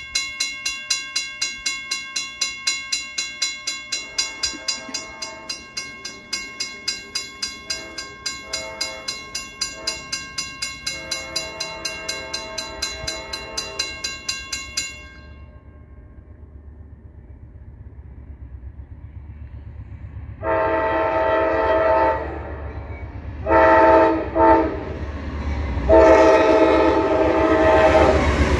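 A railroad crossing bell rings steadily about three times a second for roughly fifteen seconds, with fainter train-horn blasts sounding under it, and then stops. An approaching Amtrak passenger train's horn then blows loud and close: a long blast, a shorter one and a last long blast held as the train's rumble builds.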